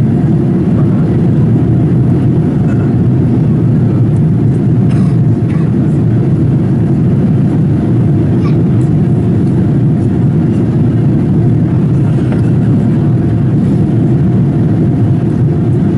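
Steady drone of a Boeing 787-8 in flight, heard inside the passenger cabin: engine and airflow noise, deep and unbroken, with a faint steady hum above it.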